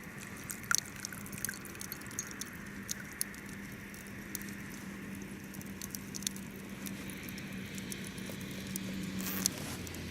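Wood campfire crackling, with irregular sharp pops from the burning logs.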